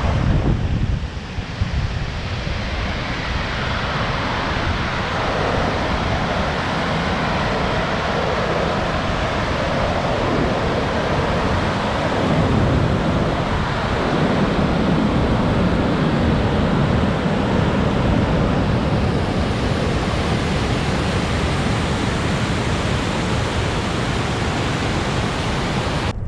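Waterfall and rapids: white water pouring over rock ledges, a steady, loud rush of water.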